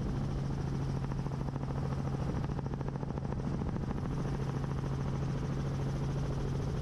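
A light helicopter's rotor and engine drone steadily in flight, with a constant low hum and a fast, even pulsing.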